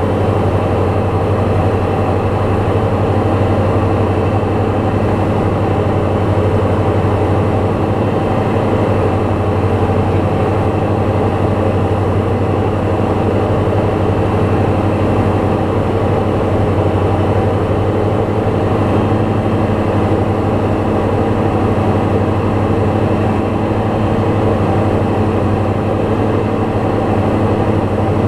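Light aircraft's piston engine and propeller droning steadily in level flight, with no change in power.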